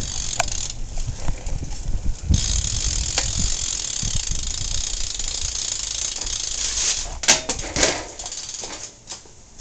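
Freewheel hub of a coasting BMX bike ticking over a steady low rumble, with a couple of sharp clicks about seven seconds in.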